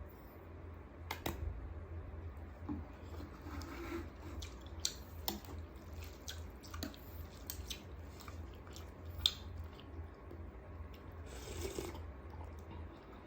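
Close-up eating sounds: scattered sharp clicks and taps of utensils on food and dishes, with a wet, squishy passage near the end, over a low steady hum.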